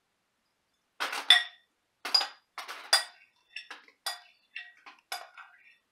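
Dishes and cutlery clattering and clinking as they are handled: a run of sharp knocks with a ringing tone, about two a second, starting a second in. The loudest knock comes near the start.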